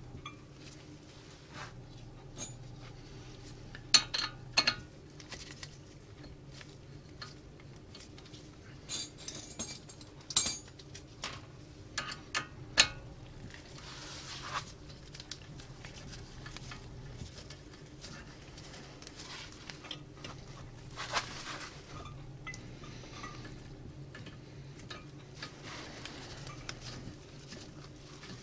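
Metal clinks, taps and short scrapes of a brake caliper and a hand tool being handled as the caliper is fitted back over new pads and its guide bolt is turned in. The clinks come in clusters, about four seconds in and again from about nine to thirteen seconds, over a faint steady low hum.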